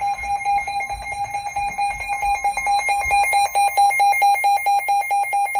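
Emergency Alert System alert tone announcing a severe thunderstorm warning: a loud, rapid electronic beeping on one pitch, pulsing evenly throughout.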